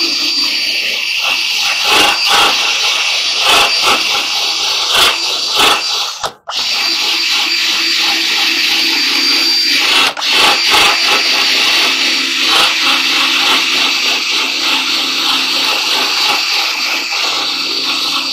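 Cordless drill spinning a wire wheel against the rusty metal rim of a clothes dryer panel, scrubbing off rust. The drill runs steadily and cuts out briefly twice, about six and ten seconds in.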